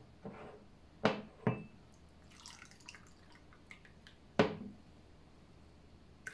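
Hot milk poured from a small saucepan into a ceramic mug: a short, light trickle that ends in drips. Sharp knocks of kitchenware come twice about a second in and once more after the pour.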